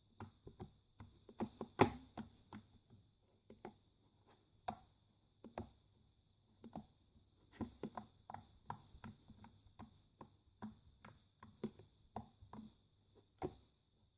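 Freshly made glossy slime, a little sticky, being squished, poked and pulled by hand for ASMR: irregular wet clicks and small pops, the loudest about two seconds in.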